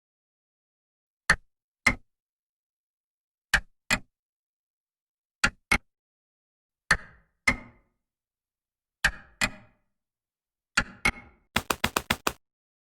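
Sharp knocks on a hard surface, like knuckles rapping on a wooden door. They come in pairs, six times over, then in a quick run of about seven near the end.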